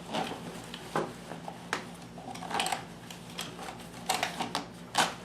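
Scattered clicks, knocks and rustles of hands handling a Bernina 610 sewing machine and the fabric under its foot, irregular rather than the even run of stitching. A low steady hum runs underneath.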